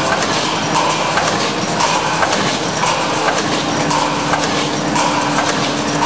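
OMAS automatic gas-pipe clamp making machine running in cycle: continuous machine clatter with a stroke repeating about once a second. A steady hum joins about halfway through.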